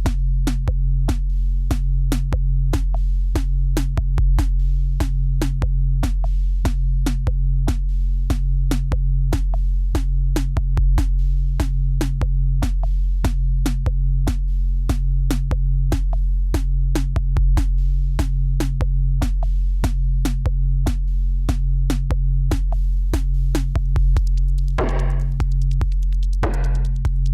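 Electronic background music with a drum-machine beat over a steady bass line.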